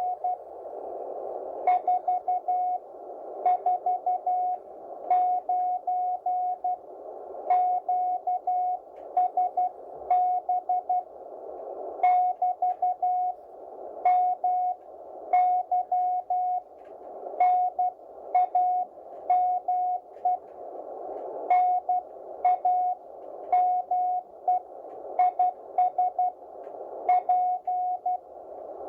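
Morse code received on the 40-metre amateur radio band: a steady mid-pitched tone keyed on and off in dots and dashes at a fair sending speed, over the receiver's band hiss, with a click at the start of many characters.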